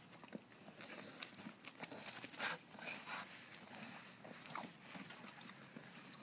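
Two pot-bellied mini pigs smacking their lips at each other through a fence: a run of quick wet clicking mouth sounds, busiest in the first half. The smacking is a challenge between them, not aggression.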